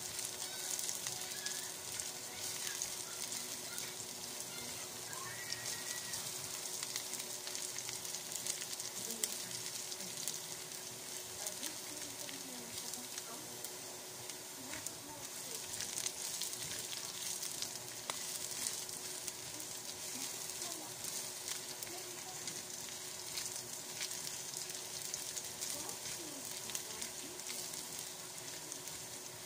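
Sliced garlic sautéing in hot oil in a frying pan: a steady sizzle with fine crackles throughout.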